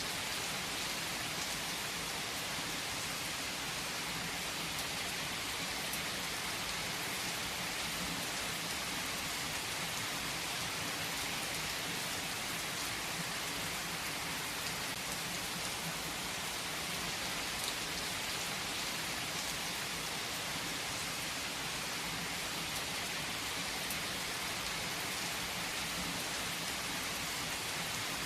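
Steady rainfall pattering on a surface, an even hiss with scattered faint drop ticks.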